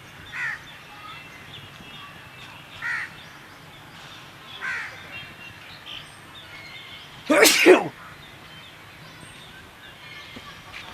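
One loud human sneeze about seven seconds in. Before it, crows caw faintly three times.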